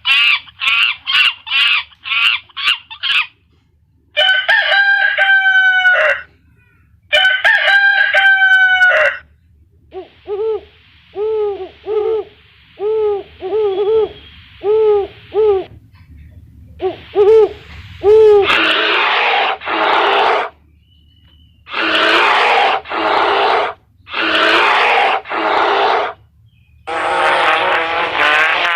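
A sequence of different animal and bird calls played one after another: a run of quick short calls, then two long rising-and-falling calls like a rooster crowing, then a string of short repeated calls, and finally several longer, rougher calls.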